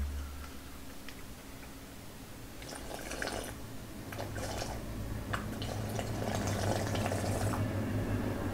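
Udon broth being drunk straight from the bowl: soft sips and swallows over a steady low hum.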